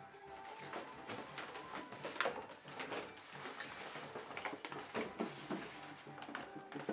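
Rustling and crinkling of plastic shopping bags and gift wrap, with light knocks, as wrapped gift boxes are rummaged through and lifted off the floor.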